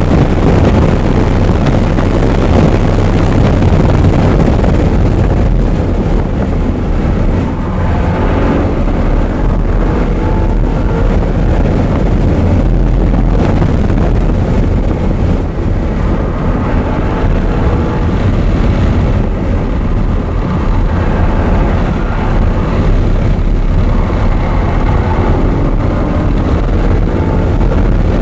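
Audi R8 being driven at speed on track: a loud, steady low rumble of road and wind noise over the car's engine. The engine note rises and falls faintly as the car accelerates and slows.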